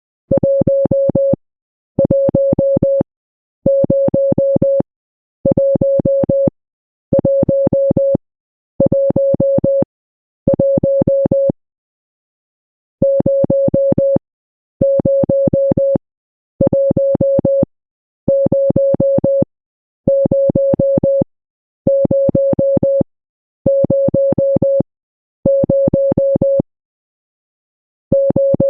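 Morse code sounded as a single steady beep tone, keyed in groups of about a second, each a rapid run of short beeps, with short gaps between groups and two longer pauses, about a third of the way in and near the end.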